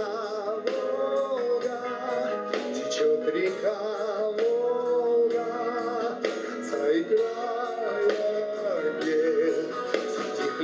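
Live vocal-instrumental ensemble music: a slow ballad with long held sung notes over a regular drumbeat.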